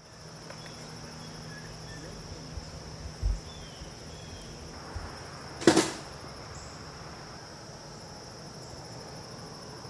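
A steady high-pitched insect drone, with a faint low hum in the first half. Two dull low thumps come about three seconds in, and a single sharp crack comes a little before the six-second mark.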